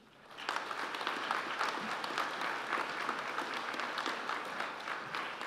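Audience applauding: many hands clapping steadily, starting about half a second in and easing off near the end.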